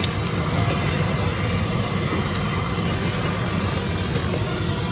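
Steady low roar of a gas burner under a wok, with hot oil sizzling around kachoris deep-frying.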